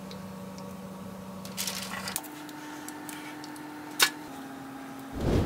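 Quiet handling of batter-coated cauliflower florets being dipped and set on a parchment-lined baking tray: a soft wet rustle a little before the middle and one sharp tap about four seconds in, over a faint steady hum.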